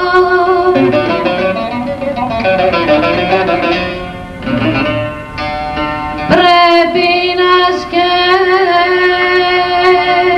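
Female voice singing a Greek amanes (manes) in makam Saba, a free-rhythm, melismatic improvisation over long held, ornamented notes, accompanied by violin and laouto. A new phrase enters sharply about six seconds in.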